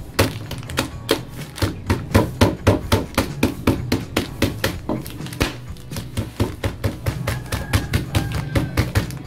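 Rapid knocking thuds of a fist pounding wrapped Beng-beng chocolate wafer bars against a tabletop to crush them, about four or five blows a second, over background music.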